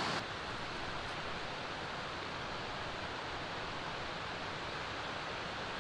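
Steady, even outdoor background noise with no distinct events, after a slightly louder stream-side ambience cuts off about a fifth of a second in.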